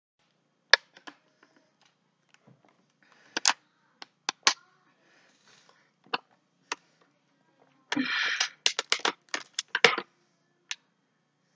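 Thin plastic water bottle crackling as it is gripped and squeezed while being drunk from: scattered sharp clicks, then a dense run of crinkling about eight seconds in and a quick string of clicks after it.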